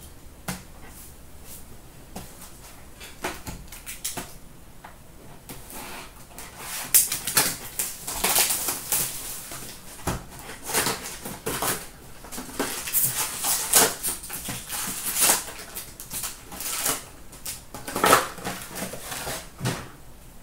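Foil trading-card pack wrappers and a cardboard hobby box being handled: crinkling and rustling with light taps, sparse at first and busy from about six seconds in as the box is opened and packs are pulled out.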